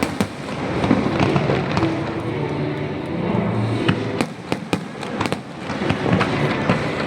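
Aerial fireworks going off: a dense run of sharp bangs and crackles, some in quick clusters, over a continuous rumble of further bursts.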